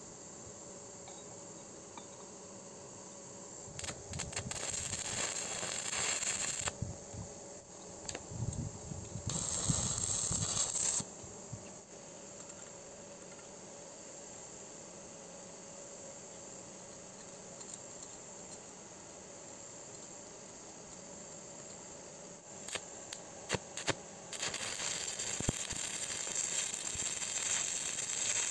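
Stick (arc) welding on thin square steel tube: the arc crackles and hisses in short runs, about four seconds in and again near ten seconds, then after a few sharp clicks burns continuously from about twenty-four seconds on. Between the runs there is only a quiet steady background.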